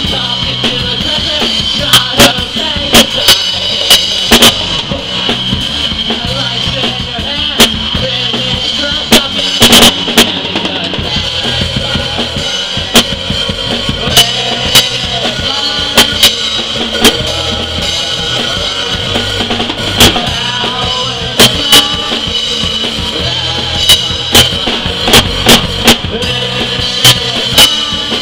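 Live rock band playing electric guitars and a drum kit, with loud drum and cymbal hits. Recorded right beside the drums, the hits peak at full scale and make the recording distort over and over.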